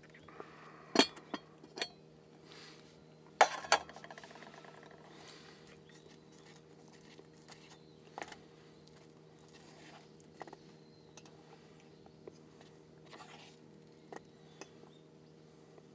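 Dishes and cutlery clinking as someone eats: a few sharp clinks in the first two seconds, a louder pair about three and a half seconds in, then scattered lighter taps, over a faint steady hum.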